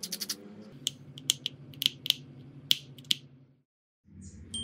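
Small sharp clicks and taps of tools and parts being handled in a smartphone teardown, over a low steady hum. A quick rattle of clicks at the start is followed by about seven separate clicks, and the sound cuts to dead silence about three and a half seconds in.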